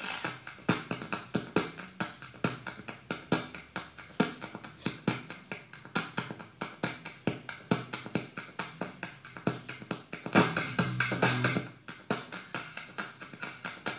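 Music with a fast, steady percussive beat, about five hits a second, briefly louder a little after ten seconds in.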